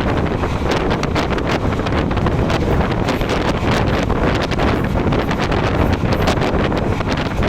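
Passenger train running at speed, heard from on board: a loud, steady rumble with many sharp clicks and knocks, under heavy wind buffeting on the microphone.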